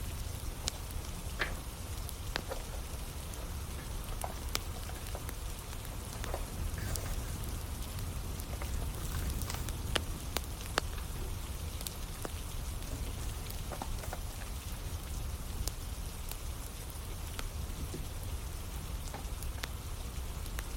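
Steady rain falling with a wood fire crackling: a constant hiss and low rumble scattered with sharp, irregular pops and snaps.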